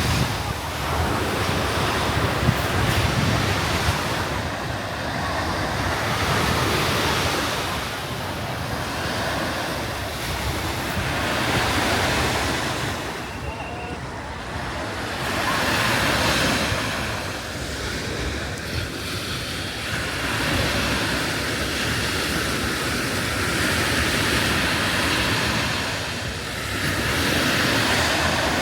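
Sea waves breaking and washing up a beach, the surf swelling and fading every few seconds, with wind buffeting the microphone in the first few seconds.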